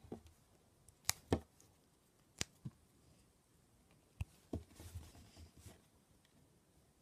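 Handling noise from hands working blu tac close to the microphone: a few sharp taps and clicks, mostly in pairs, then about a second of soft rubbing as a rolled strip is laid on a wooden table.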